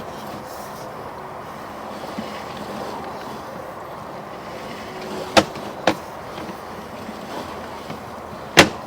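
Sewer inspection camera being pushed through a sewer lateral: a steady rushing noise, with two sharp knocks about half a second apart partway through and a louder knock near the end.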